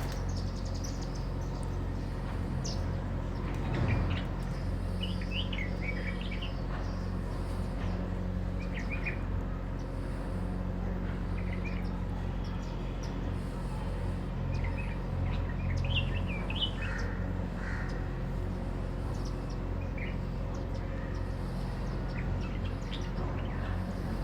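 Sparrows chirping in short, scattered calls, over a steady low hum.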